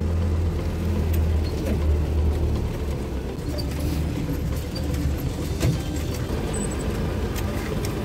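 UAZ off-road vehicle's engine pulling steadily, heard from inside the cab while driving over a rough snowy forest track, with scattered knocks and clatter from the body throughout.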